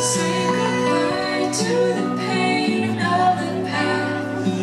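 Fireworks-show soundtrack music: a woman singing over held orchestral chords and a moving bass line.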